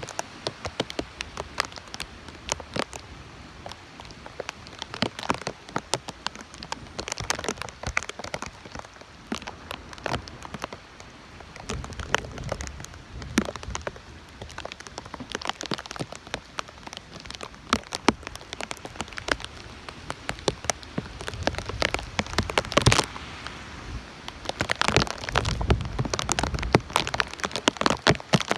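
Heavy tropical-storm rain falling, with many sharp drops striking close to the microphone. Gusts of wind rumble on the mic in swells, strongest near the end.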